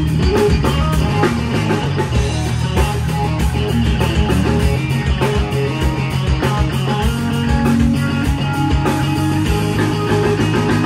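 Live blues-rock band with no vocals: a Stratocaster-style electric guitar plays over electric bass and a drum kit.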